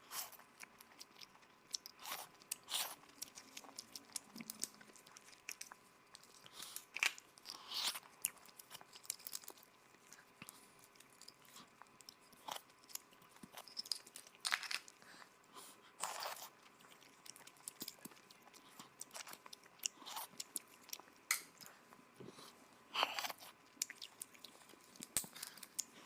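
Close-up eating of red crab: irregular sharp crunching bites every second or two, with quieter chewing between them.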